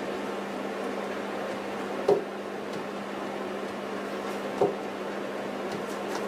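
Steady room hum and hiss, broken by two short soft knocks about two and a half seconds apart.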